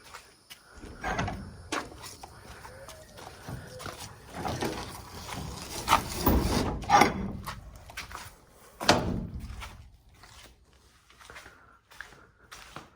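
Irregular knocks, clicks and rustling as things are handled, moved and shut. There is a louder cluster around six to seven seconds in and a sharp knock about nine seconds in.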